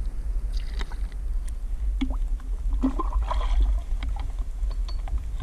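Water sloshing and gurgling against a waterproof action camera held half-submerged at the waterline, a steady low rumble with small splashes and clicks, busiest about three seconds in.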